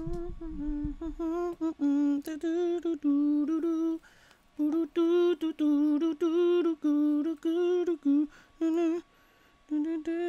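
A man humming a tune to himself in short, connected notes that step up and down between a few pitches, with a couple of brief pauses.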